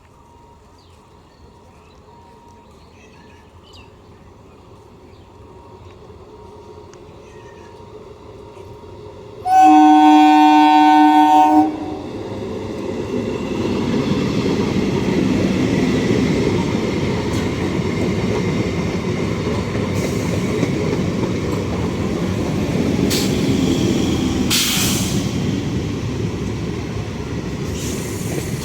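Indian Railways train approaching, its rumble slowly building, then the locomotive horn sounds one loud blast of about two seconds. The train then passes close by with a loud steady wheel-on-rail rumble and a few sharp clacks.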